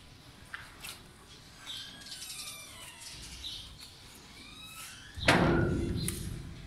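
Birds chirping and calling in short, repeated notes. About two-thirds of the way through, a loud, rough noise comes in suddenly and fades away over about a second.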